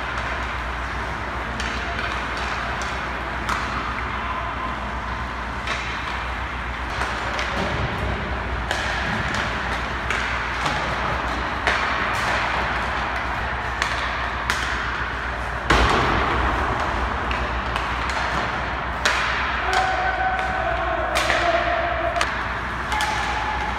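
Ice hockey practice: pucks smacked off sticks and knocking into goalie pads, net and boards, with skate blades scraping the ice, over a steady low rink hum. The loudest knock comes about two-thirds through, followed by a scrape of about a second.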